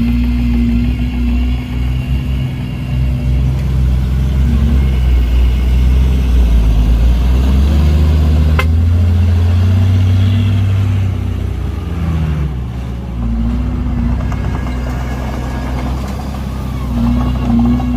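Heavy diesel engine running under load, its pitch rising and holding in the middle, dropping a little after, and rising again near the end. A single sharp click about halfway through.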